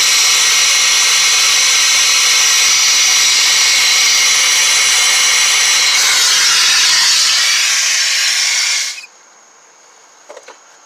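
Gas torch flame running with a loud, steady hiss while it heats a seized, rusted pulley nut. Its tone shifts about six seconds in, and it cuts off suddenly about nine seconds in.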